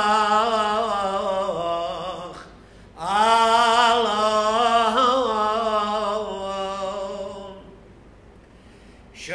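A priest chanting a Syriac liturgical hymn solo and unaccompanied, his voice wavering and ornamented on long held notes. Two long phrases are broken by a breath about two and a half seconds in, then a pause of about a second and a half near the end before the next phrase starts.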